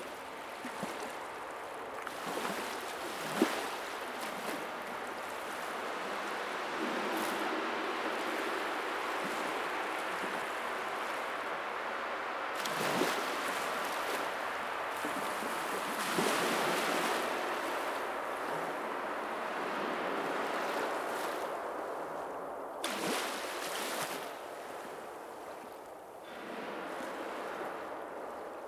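A rushing, water-like noise that swells and ebbs, with a few sharp clicks, the loudest about three seconds in.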